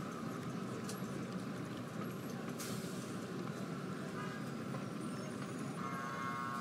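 Steady, low background ambience with no distinct events; a faint tone comes in near the end.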